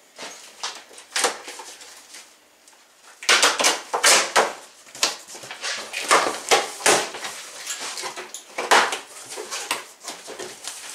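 Cardboard shipping box being opened by hand: after a few quieter seconds, a run of irregular sharp scraping, tearing and flapping noises from about three seconds in as the tape is slit and the flaps are pulled open.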